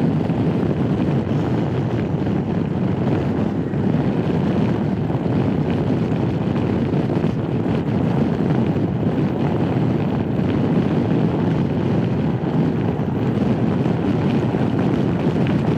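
Steady wind noise on the microphone from riding a Honda Forza 250 maxi-scooter at highway speed, with road and engine noise mixed into the rush.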